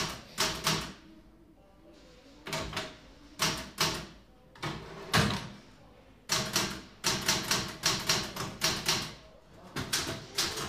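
Typewriter keys clattering in quick irregular runs with short pauses between, the longest and densest run starting about six seconds in.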